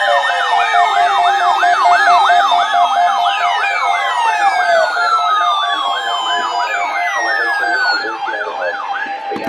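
A siren-like warble whose pitch sweeps up and down about three times a second, overlaid with several falling whistle-like glides and a steady tone; it stops near the end.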